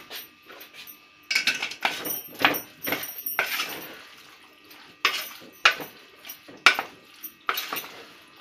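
A wooden spatula scraping and knocking against an aluminium pot as chickpeas in a little water are stirred, in a series of irregular strokes.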